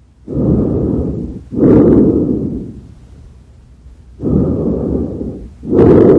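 Recorded lung auscultation sounds: two breaths, each a noisy rush in two parts, the second part louder.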